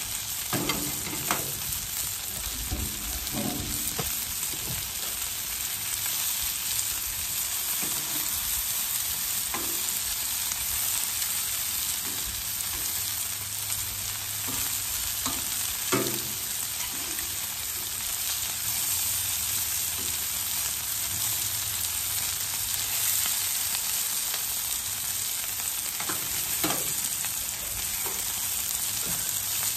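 Sausage links, ground breakfast sausage and bacon sizzling on a Blackstone 28-inch steel flat-top griddle, a steady hiss, with a few sharp clicks of metal tongs on the griddle as the bacon is lifted off.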